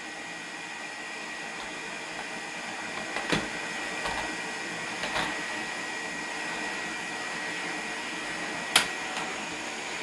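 Vacuum cleaner running steadily with a high whine, with a few sharp knocks, the loudest about three seconds in and near the end.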